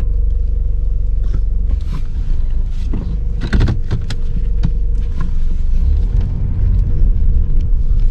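Car driving slowly with a steady low engine and road rumble, and a series of knocks and rattles as the wheels go over onto a rough bridge, the sharpest cluster about three and a half seconds in.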